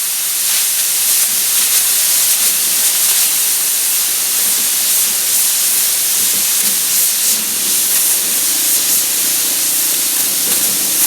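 MIG welder running a continuous weld on the steel sheet metal of a car hood, filling a bolt hole, with the wire feed turned up: a steady, loud hissing crackle.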